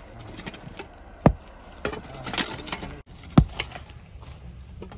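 Sledgehammer striking and breaking stones on a rock pile: two heavy blows about two seconds apart, with lighter clinks in between.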